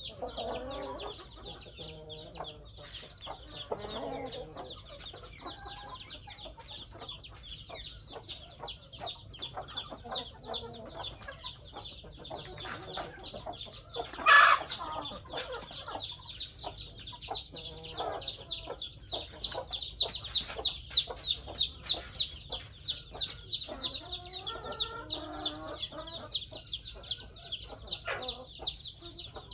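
A flock of chickens clucking, over a constant dense high-pitched peeping. A single loud sharp sound comes about halfway through, and a run of quick knocks follows in the second half.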